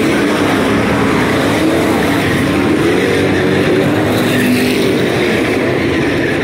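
Several street stock race cars' engines running hard at once, loud and steady, their pitches overlapping and wavering up and down as the cars race past.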